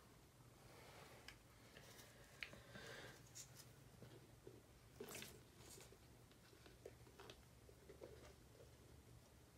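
Near silence: faint scattered clicks and rustles of hands working in a glass terrarium, over a low steady hum.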